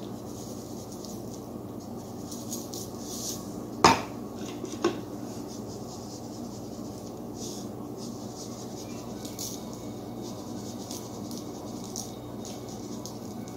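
Oil and butter bubbling in a skillet with faint intermittent crackles over a steady hum. Two sharp clinks of a utensil against a dish or pan come about four and five seconds in, the first the loudest.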